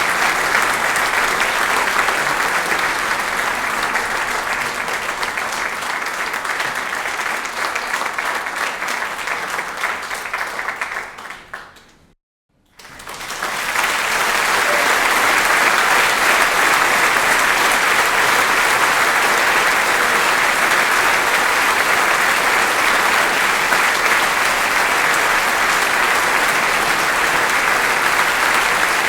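Audience applauding, many hands clapping in a dense, steady patter. About twelve seconds in the applause fades out to a moment of silence, then a new round swells up and holds steady.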